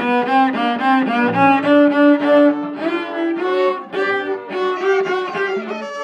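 A small string group of violin and cello playing a piece together, all coming in at once at the start with short bowed notes in a quick, even rhythm.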